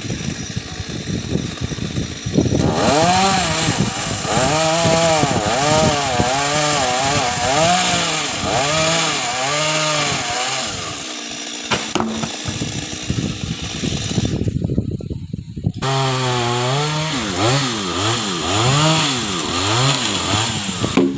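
Chainsaw engine cutting a coconut tree: it runs at a lower, steady speed at first, then from about two and a half seconds in revs up and down in repeated swells, about once a second, as it works through the trunk.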